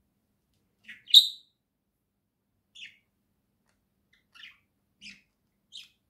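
Budgerigar chirping: short, high chirps, a sharp loud one about a second in, then four fainter chirps spaced through the rest.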